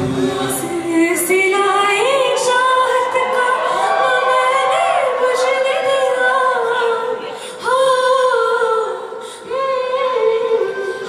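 A cappella vocal group singing without instruments, holding sustained chords in close harmony that slide from one chord to the next. There is no low bass part, and the sound dips briefly twice in the second half.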